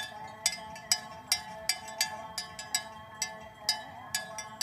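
Bells hung on cattle clanking irregularly as the animals move, two or three strikes a second, each ringing on briefly.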